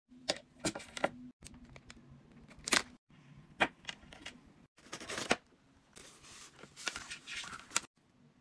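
Handling sounds of a plug-in charger and its cable being moved about on a wooden tabletop: several sharp plastic clicks and taps with stretches of rustling. The sound cuts out abruptly several times where the clip is edited.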